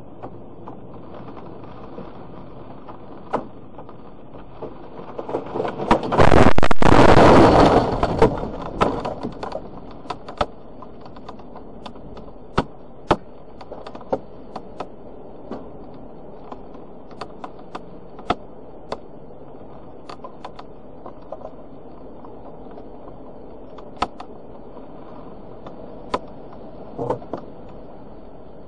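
A tree crashes down onto the van, heard from inside the van: a very loud crash of branches striking the body about six seconds in, lasting about two seconds and fading. Around it, steady storm noise with scattered sharp ticks and knocks.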